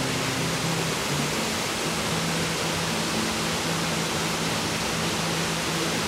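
Steady rush of a waterfall, with a quiet, slow melody of low held notes beneath it.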